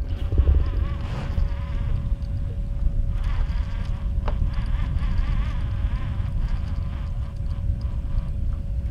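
Wind buffeting the microphone on an open boat, with a steady buzzing hum throughout and a single sharp click about four seconds in.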